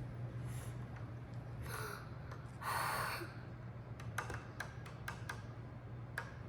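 Faint handling of a plastic doll in a cup of water: a few soft rushes of water as it is swished about, then several small clicks, over a low steady hum.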